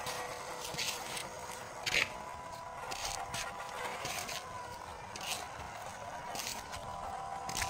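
Scale RC off-road crawler driving slowly on a concrete path: the electric motor and gears whine steadily, with short scraping sounds from the tyres every second or so.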